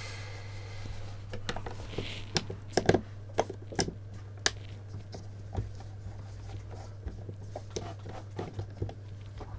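Screwdriver undoing Phillips screws from a soundbar's plastic back panel: irregular small clicks and scrapes of the bit, the screws and the casing, busiest about two to four and a half seconds in, over a steady low hum.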